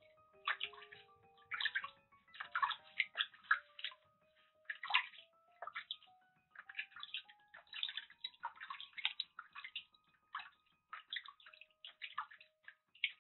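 Water sloshing and splashing in a small washbasin as a kitten is bathed by hand, in irregular bursts with short lulls.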